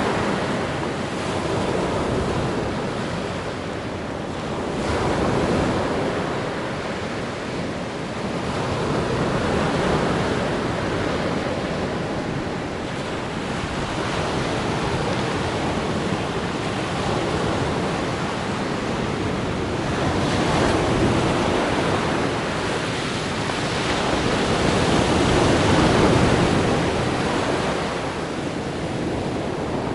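Black Sea surf: waves breaking and washing on the shore in a continuous rush that swells and ebbs every few seconds.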